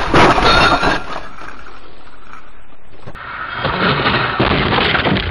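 Car crash heard from inside the car: a loud crunching impact with the windshield glass cracking, in the first second. About three seconds in, the sound cuts abruptly to a different, rougher stretch of noise.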